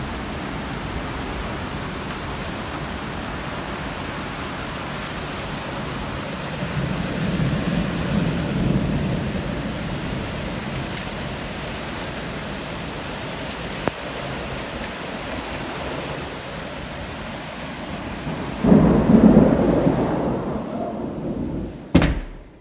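Heavy rain pouring steadily in a thunderstorm, with a rumble of thunder about a third of the way in and a louder rumble of thunder near the end. A short knock comes just before the end as the rain noise drops away.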